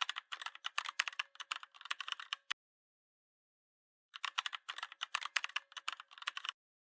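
Rapid keyboard typing clicks in two bursts of about two and a half seconds each, with a silent pause between them.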